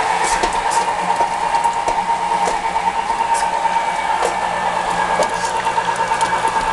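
Fabio Leonardi electric tomato milling machine running steadily with a constant hum, with scattered short clicks as whole tomatoes go through it.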